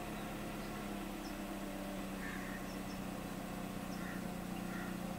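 Steady low hum in a car's cabin, with a few faint short chirps.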